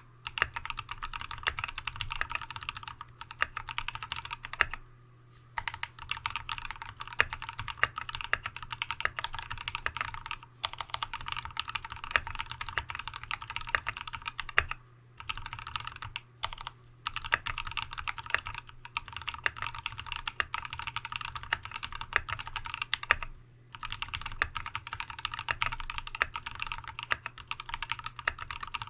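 Steady typing on a TX75v2 custom mechanical keyboard with a brass plate, lubed Tealios V2 linear switches with Cherry top housings, and Dev/tty MT3-profile keycaps: a dense run of key clacks, broken by brief pauses about five, ten, fifteen and twenty-three seconds in.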